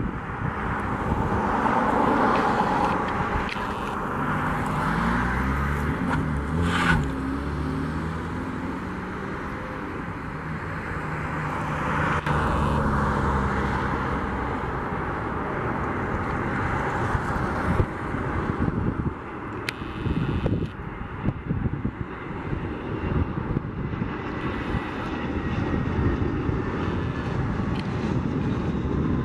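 Airbus A320 airliner on final approach, its jet engines rumbling as it closes in and passes, with low tones that glide in pitch for a stretch. Gusts of wind buffet the microphone, with a sharp knock about seven seconds in.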